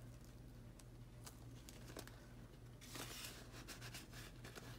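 Faint rustling and crinkling of a paper $10 bill being handled and slid into a clear plastic cash envelope, with a few soft clicks and a brief louder rustle about three seconds in. A low steady hum runs underneath.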